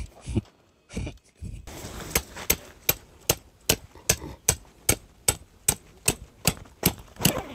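Tent pegs being hammered into the ground with a mallet: a few dull knocks, then a steady run of sharp strikes about three a second from about two seconds in.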